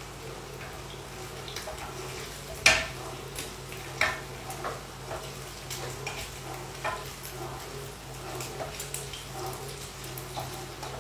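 Beef slices frying in olive oil in a pan, sizzling steadily, while a wooden spatula stirs them and scrapes and knocks against the pan; the loudest knock comes about two and a half seconds in.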